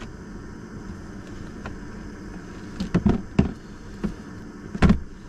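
Knocks and clunks of gear being handled, a cluster about three seconds in and a louder one near the end, over a steady low rumble.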